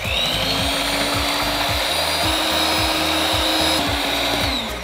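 Electric hand mixer with twin wire beaters whipping fresh cream and confectioners' sugar into chantilly in a glass bowl: a steady motor whine whose pitch rises a little about halfway, drops back, then winds down just before the end. A background music beat runs underneath.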